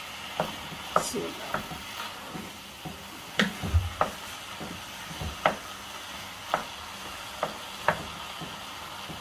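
A wooden spoon stirring minced meat and onions frying in a stone-coated pot, with a steady sizzle and irregular knocks of the spoon against the pot. The raw mince is just beginning to cook.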